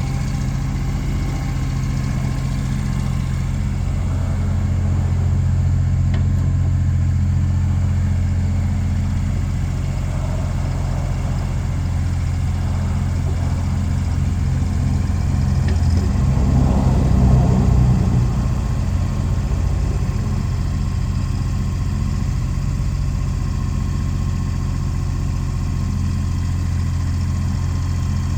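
John Deere 35ZTS compact excavator's diesel engine running steadily, briefly louder and rougher for a couple of seconds a little past the middle.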